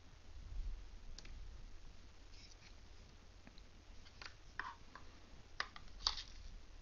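Faint, scattered small clicks and taps from handling an iPod's small parts and tools, a few irregular ticks with the sharpest two near the end.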